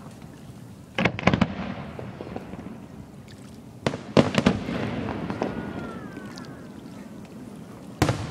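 Aerial firework shells exploding: a quick cluster of sharp bangs about a second in, another volley around four seconds in, and a single bang near the end, each trailing off in echoes.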